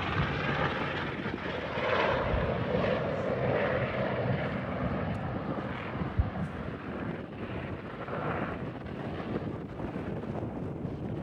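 Off-road race vehicle's engine running hard at speed, a dense steady engine noise that is strongest around two to four seconds in, with a single sharp thud about six seconds in.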